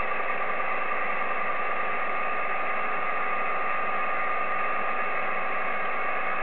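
Steady hiss of band noise from an Icom IC-7300 transceiver receiving upper sideband on the 10-meter amateur band, with nobody transmitting, a few faint steady tones running through it.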